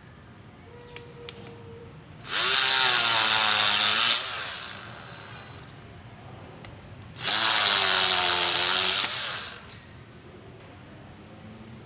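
Corded rotary tool running with a bit against a wooden block in two bursts of about two seconds each, spinning up sharply and winding down after each.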